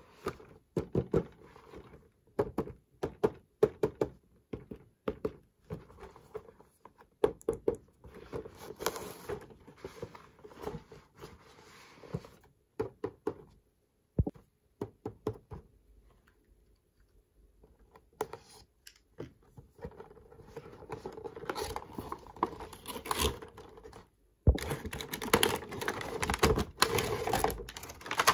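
Small plastic toy pieces being handled: a run of sharp clicks, taps and light knocks, then, after a pause about halfway through, a steady crinkling and rustling that grows louder near the end.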